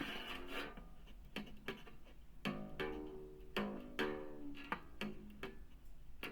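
Homemade bass cigar box guitar with a piezo pickup, picked and played through an amplifier speaker: a string of single plucked notes at an uneven pace, each ringing briefly before the next.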